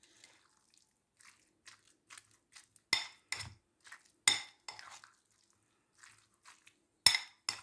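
Utensil clinking and scraping against a bowl as dried figs are mixed into olive oil: irregular knocks, the loudest about three seconds in, a little after four seconds and twice near the end.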